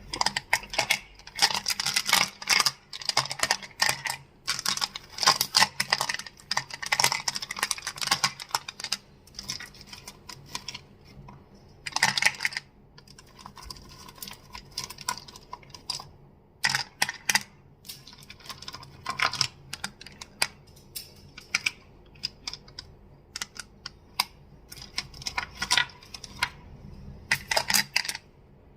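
Crystals being tapped and clicked close to the microphone: quick clusters of sharp clicks, densest in the first ten seconds, then in shorter runs with brief pauses.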